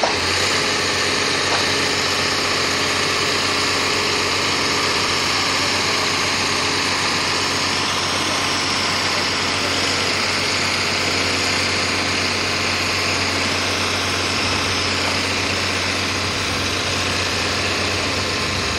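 Engine of a PQRS track-relaying machine running steadily as it lifts a row of concrete sleepers: a constant low hum under an even hiss.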